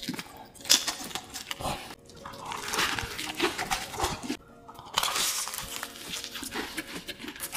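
Close-up chewing and biting into crisp-battered fried chicken: sharp crackly crunches in spells, with a loud crunch about a second in and more crunching in the middle and near the end.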